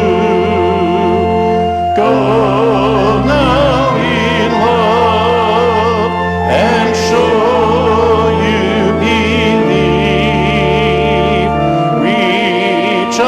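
Voices singing with vibrato over sustained organ chords, the deep bass notes held for a couple of seconds each before moving to the next.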